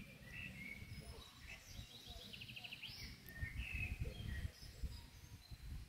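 Small songbirds chirping, with a quick trill of short repeated notes about two and a half seconds in, over a faint low rumble.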